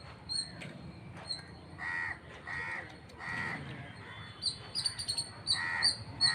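Crows cawing: several harsh caws in two runs, with a small bird's quick, even high chirping behind them.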